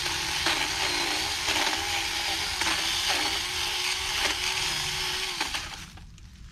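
Small cordless electric chainsaw running and cutting through evergreen branches. Its motor whine dips in pitch several times as the chain bites into the wood. It cuts off about five and a half seconds in.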